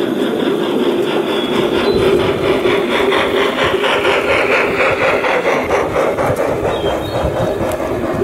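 G-scale garden-railway model steam train rolling past on its track, wheels running with a steady rumble and a rapid, regular clicking that thins out after about five seconds as the train goes by.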